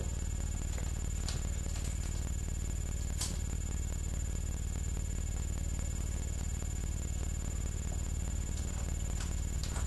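Steady low electrical hum with a faint hiss, picked up through a webcam's microphone, with a couple of faint clicks.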